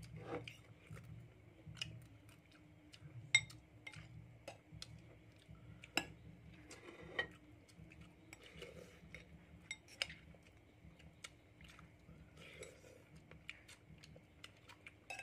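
Metal spoons and forks clinking and scraping against ceramic plates and bowls during a meal, in scattered sharp clinks, the loudest about three, six and ten seconds in. A faint steady hum runs underneath.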